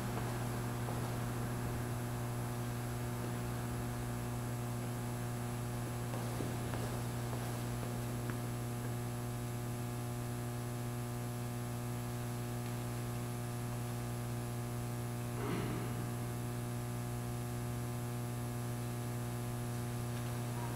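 Steady electrical mains hum with a low buzz and several higher tones above it, with one brief soft noise about fifteen seconds in.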